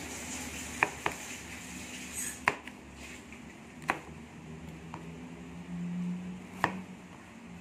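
Chef's knife cutting through a red chili onto a plastic cutting board: about five or six sharp, separate knocks of the blade on the board, spaced irregularly a second or so apart.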